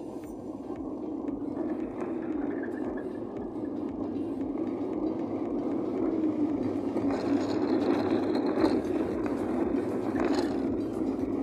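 Car interior noise while driving: a steady rumble of the engine and tyres on the road, growing gradually louder as the car moves along.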